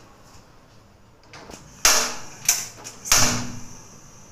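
Three sharp knocks in the kitchen, about two-thirds of a second apart, each ringing out briefly.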